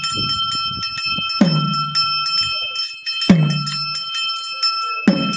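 Brass hand bell rung rapidly and continuously, as in temple worship, giving a dense, steady metallic ringing. A deep stroke sounds about every two seconds and drops in pitch as it dies away.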